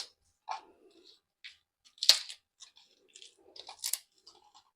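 Fresh guava leaves being cut into small pieces: irregular short crunches and taps, the loudest about two seconds in and again near four seconds.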